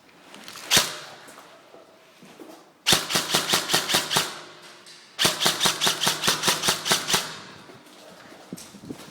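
Airsoft gun firing: a single shot about a second in, then two bursts of rapid fire, each over a second long, with a short gap between them.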